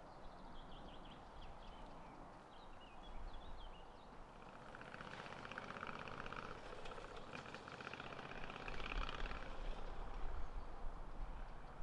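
Small birds chirping and twittering, building to a dense run of rapid chirps in the middle. A low rumble, like wind on the microphone, comes in near the end.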